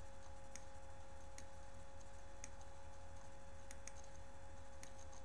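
About six faint, short computer-mouse clicks spread over a few seconds, above a steady low electrical hum and a faint steady tone.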